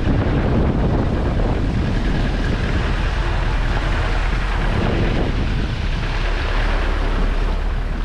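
Wind noise buffeting an outside-mounted action camera's microphone over the low, steady sound of a 4x4 engine driving slowly along a wet dirt trail.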